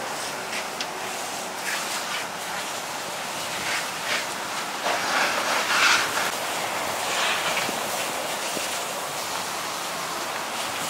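Burning Iveco truck: the fire gives a steady rushing hiss with irregular crackles and pops, loudest about six seconds in.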